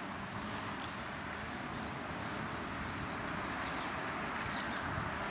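Steady outdoor background noise: an even hiss with no distinct events.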